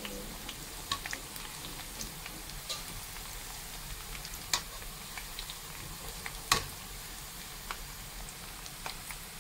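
Food frying in hot oil in a pan, a steady sizzle with a few sharp clicks through it.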